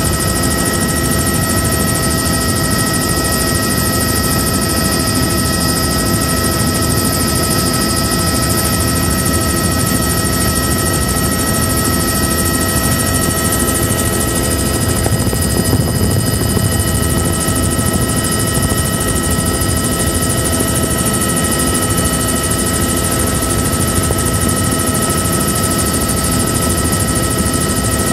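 Helicopter in cruising flight heard from inside the cabin: a loud, steady drone of rotor and engine with several constant high whining tones over it.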